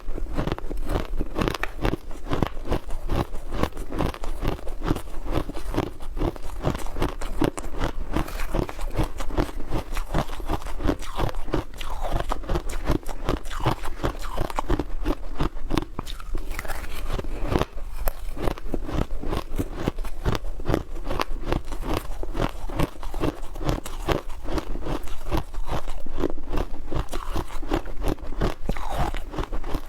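Ice being chewed and crunched close to the microphone: a dense, unbroken run of crackling bites with no pauses.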